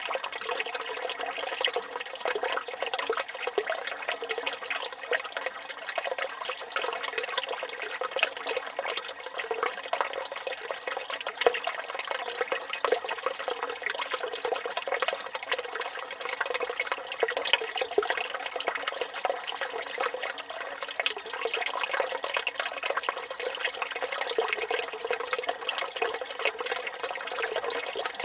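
Water pouring from a village fountain's spout, splashing steadily and continuously.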